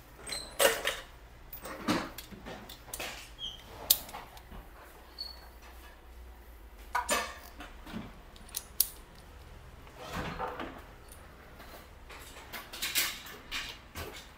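Metal hand tools, a torque wrench and sockets, clinking and clattering as they are handled at a workbench: scattered sharp clicks and knocks at irregular intervals, a second or more apart.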